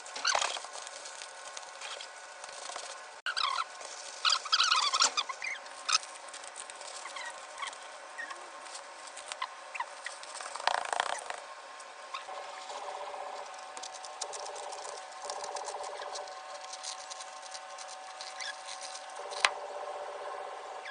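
Small caged birds chirping in short, squeaky calls, with scratching and pattering as they move about. The chirps are busiest about four to six seconds in.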